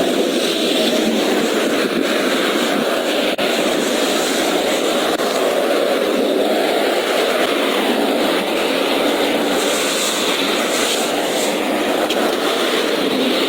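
Steady, even rush of interstate traffic passing at highway speed, without breaks.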